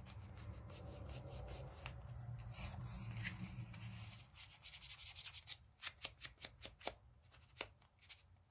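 Foam ink blending tool rubbing walnut stain distress ink onto the edges of a paper tag: a quiet, steady scrubbing for about four seconds, then a run of light, irregular taps.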